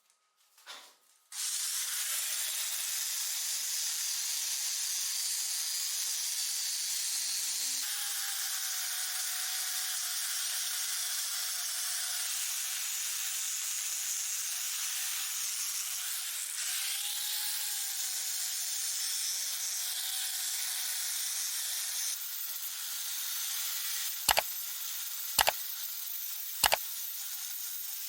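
Steady hissing spray that starts abruptly about a second in, with four sharp clicks near the end.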